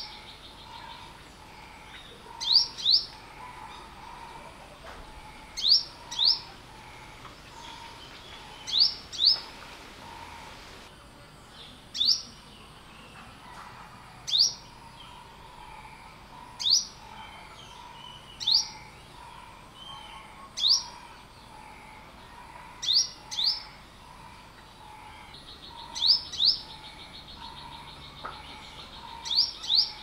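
Olive-backed sunbird calling: short, sharp rising notes, some single and most in quick pairs, repeated every two to three seconds.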